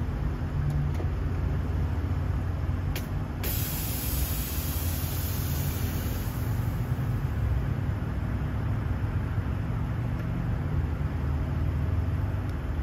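Lexus LC500's 5.0-litre V8 idling with a steady low rumble. About three and a half seconds in, a click and a sudden sharp hiss of air venting from the air suspension's valves, fading away over about three seconds.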